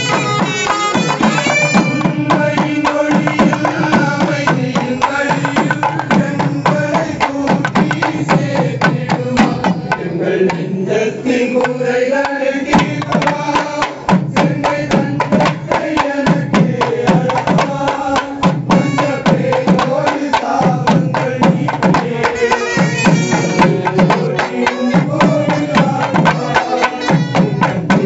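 Festival band music: barrel drums beating a steady, driving rhythm under a melody on clarinets and other wind instruments.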